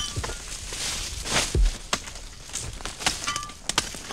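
Machete chopping through sugarcane stalks: a string of sharp cracks and knocks, some with a brief ringing, and a heavier swish and thud about a second and a half in.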